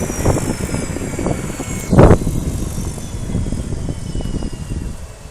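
Helicopter winding down after landing: a high engine whine falls steadily in pitch over a low, choppy rumble of the slowing rotor blades. There is one loud thump about two seconds in, and the rumble eases near the end.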